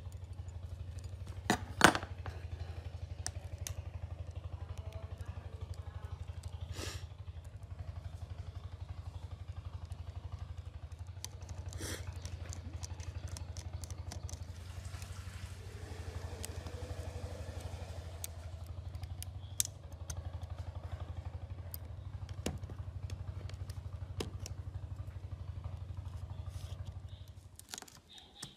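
Small sharp clicks and taps of a screwdriver and tweezers on an old iPhone's metal frame and screws, scattered and irregular, the loudest about two seconds in. Under them a steady low hum with a pulsing texture, which stops near the end.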